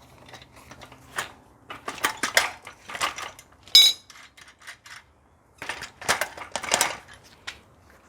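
Metal clinking and rattling as a bicycle wheel, its axle bolts undone, is worked out of the frame, in several irregular bursts. One sharp, ringing metal clink just before the middle is the loudest.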